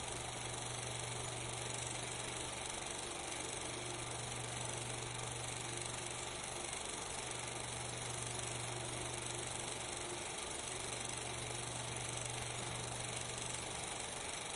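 Steady hiss with a constant low hum underneath, unchanging throughout, with no distinct events.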